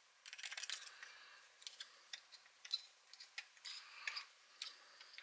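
Faint small clicks and light scraping of a screwdriver working the mixture adjustment screws on a chainsaw carburetor, with the carburetor handled in the fingers.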